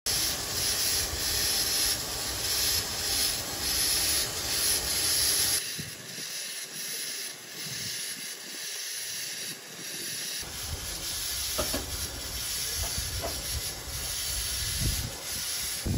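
Steam hissing steadily from standing Fowler steam locomotives. The sound drops abruptly and grows quieter about five and a half seconds in, then fills out again a few seconds later.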